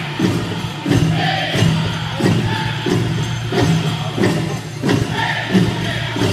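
A powwow drum group beats a large drum in a steady rhythm, about one and a half strokes a second, while the men sing together in a high chant for the chicken dance.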